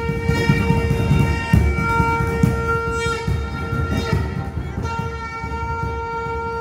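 Live devotional music: a wind instrument holds a long, steady note over hand-played barrel drums beating beneath it.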